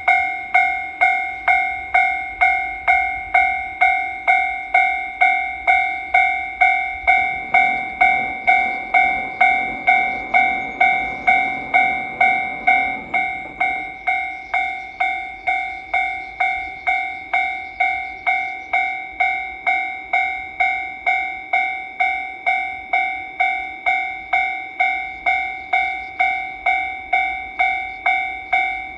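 Japanese railway level-crossing warning bell clanging steadily, about two strokes a second, each stroke ringing on. For several seconds in the middle a train's low rumble runs under it as it passes through the crossing.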